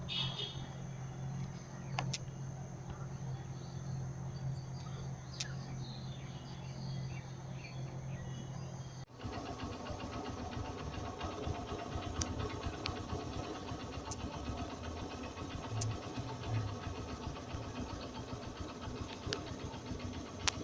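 An engine running steadily with a low hum. About nine seconds in the sound cuts abruptly to a different, busier engine drone with many overtones, broken by a few sharp clicks.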